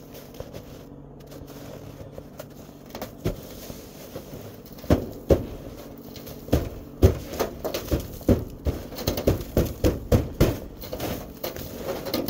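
Snow being swept and knocked off a pickup truck's hood by a gloved hand: irregular soft thumps and swishes, starting about three seconds in and coming thick and fast in the second half.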